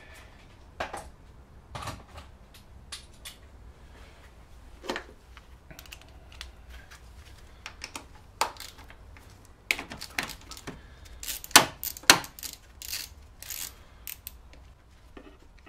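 Hand tools clicking, tapping and knocking against engine metal while the mounting screws of an Opel X20XEV's idle air control valve are undone. The clicks come irregularly, with a cluster of louder knocks about ten to thirteen seconds in, the two sharpest close together.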